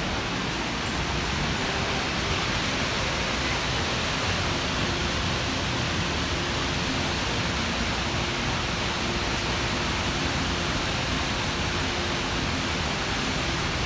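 Månafossen waterfall, water in a 90-metre free fall, making a steady, even rush of noise.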